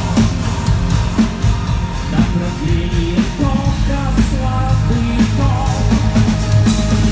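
Live rock band playing a song at a soundcheck, with drums, bass, guitars and a singing voice, heard through a club's sound system.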